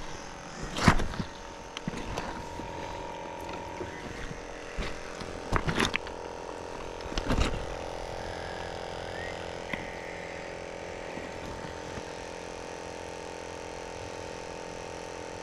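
Fishing rod and reel gear being handled while rods are set out: a loud knock about a second in, then two more around six and seven seconds, with a few smaller clicks, over a steady drone.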